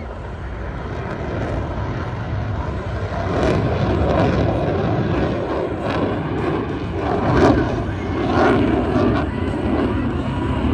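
Fighter jet flying over, its engine noise building over the first few seconds and then staying loud.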